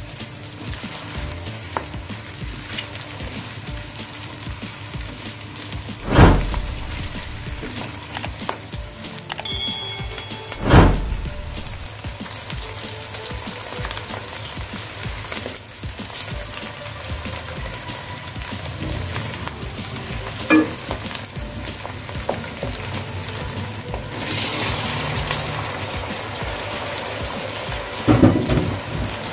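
Chopped onions sizzling as they fry in oil in an aluminium karahi, stirred with a spatula. A few loud knocks stand out, about six and eleven seconds in and a couple more near the end.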